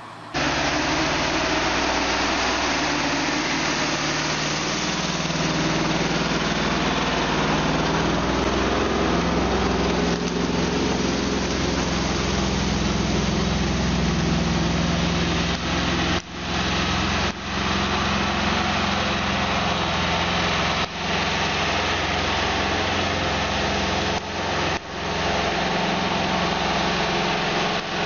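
Loaded log truck's engine running steadily and loudly under load, with a few brief sharp dips in the sound in the second half.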